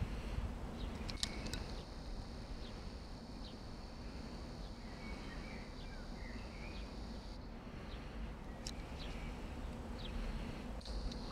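Outdoor ambience: a steady high-pitched insect chirring that breaks off about seven seconds in and starts again near the end, with a few short bird chirps and a low background rumble.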